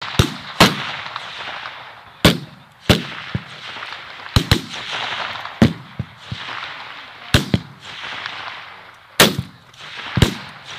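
5.56 mm M16 rifles fired in single shots by several shooters along a firing line: about a dozen sharp reports at irregular intervals, some in quick pairs, each followed by an echo rolling back across the range.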